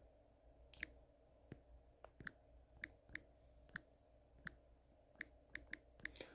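Faint typing clicks, about fourteen at an uneven pace, as a light's name is typed into the Philips Hue app.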